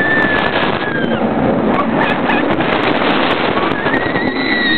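A B&M inverted roller coaster train running through its course, with wind rushing over the microphone and the roar of the train on the steel track. Riders give long, high held screams, one fading out about a second in and another starting near the end.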